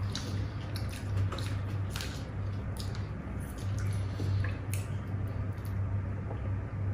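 Eating sounds: wet chewing and slurping of japchae glass noodles, with small scattered clicks and ticks, over a low steady hum.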